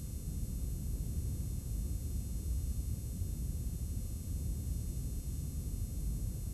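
Steady low rumble with a faint hiss and no other sound: the background noise of a blank stretch of videotape.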